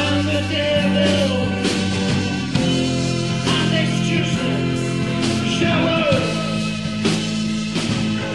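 1970s psychedelic rock music with held notes, gliding electric guitar lines and a steady drum beat.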